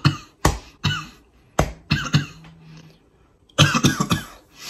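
A man coughing after inhaling mist from a melatonin diffuser pen: a few single harsh coughs, then a quick run of coughs near the end.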